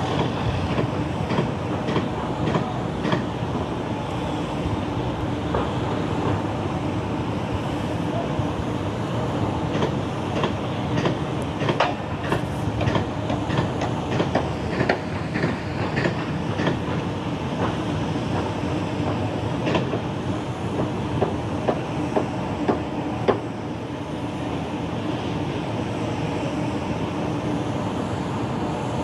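Steady mechanical rumble with irregular sharp clanks and knocks scattered through it.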